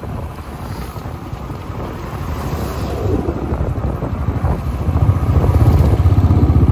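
Motorcycle engine running, heard from the rider's seat, with wind buffeting the microphone. The engine gets louder about five seconds in.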